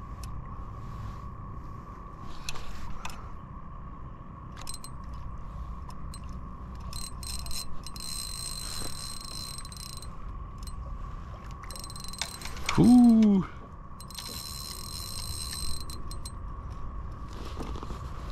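Fishing reel being cranked in spells with a high whirr, bringing in a hooked catfish. A single brief, loud, falling-pitched tone comes about two-thirds of the way through.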